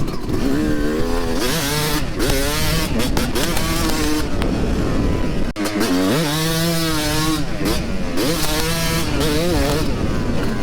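Yamaha YZ250 two-stroke dirt bike engine revving up and down repeatedly, with heavy wind buffeting and distortion on the microphone.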